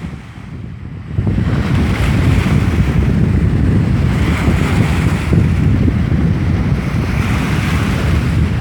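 Strong wind buffeting the microphone with a loud low rumble, over the hiss of wind-driven waves washing on a lake shore. The wind rumble jumps up about a second in and stays strong.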